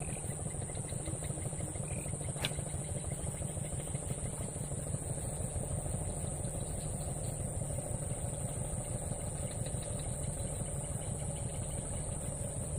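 Small engine running steadily at idle, with a fast, even low throb, over a constant high-pitched hiss.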